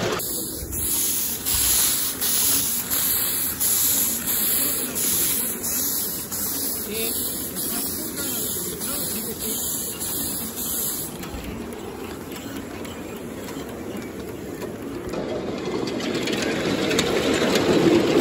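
Live-steam miniature Pacific locomotive hissing steam in rhythmic puffs, a pulse roughly every half second to second; about eleven seconds in the hiss stops, and a low rumble builds toward the end.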